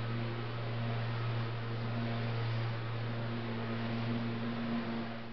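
A motor or engine running steadily with a low, even hum, cutting off suddenly at the end.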